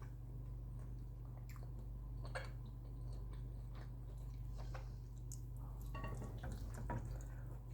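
A person chewing kholodets (meat jelly) with garlic close to the microphone: wet mouth sounds and a few short clicks, over a steady low hum.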